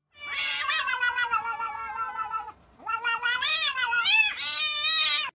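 A cat yowling in two long drawn-out calls, the first sliding slightly down in pitch, the second wavering up and down before it cuts off suddenly.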